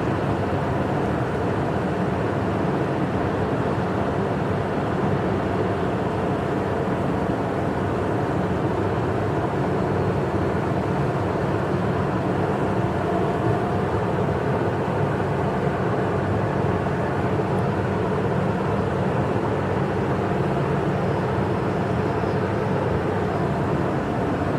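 A freight train passing, a steady rumble that holds at one level throughout.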